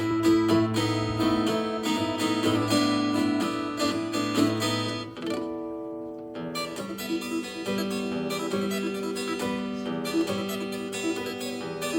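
Fingerstyle guitar playing plucked melody and chords over a bass line, softening to a held chord about halfway through before the picking resumes.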